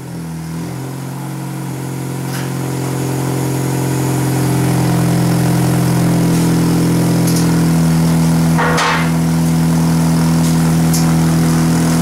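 R50 Mini Cooper's 1.6-litre four-cylinder idling steadily through a straight pipe with a chrome tip in place of the muffler. It grows louder over the first few seconds, and a short knock sounds about nine seconds in.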